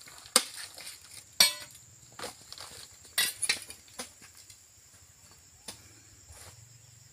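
About seven sharp metallic clinks and knocks from a hanging steelyard scale as its beam and sliding weight are set to weigh a net of oil palm fruit bunches. The loudest comes about a second and a half in, with a short ring.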